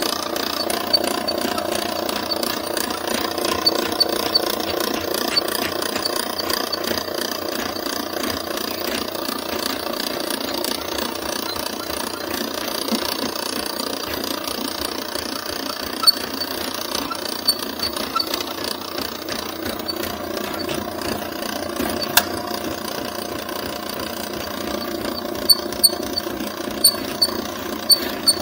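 Powered drain snake running, its spinning cable being fed into a kitchen sink drain line to clear a clog. Steady motor and cable noise with sharp clicks now and then, more of them near the end.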